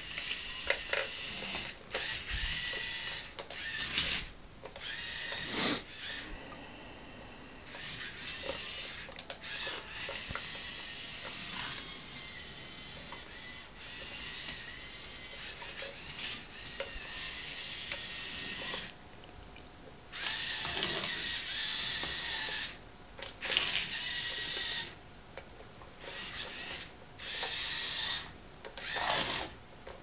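Small geared electric motors of a homemade wireless robot car whirring in repeated bursts of a second or two, starting and stopping as the car moves and turns, with a few sharp clicks in between.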